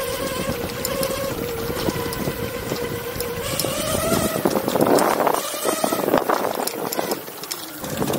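Electric skateboard motors whining steadily as the cart rolls across grass, the whine rising in pitch a few seconds in as it speeds up. A loud rush of noise comes about halfway through, and small knocks and rattles run throughout.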